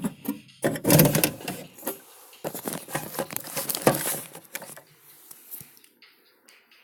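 Rapid clattering and rustling close to the microphone, in two loud bursts: about a second in and again around three seconds in.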